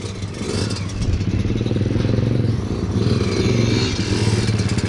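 Small dirt bike engines running, getting louder over the first second and then holding steady.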